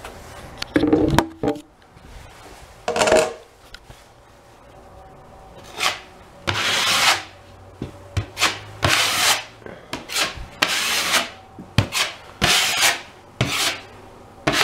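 Metal drywall knife scraping quick-setting joint compound (Sheetrock 90) into screw holes on a drywall wall: a dozen or so short scraping strokes, coming closer together in the second half, with a few knocks about a second in.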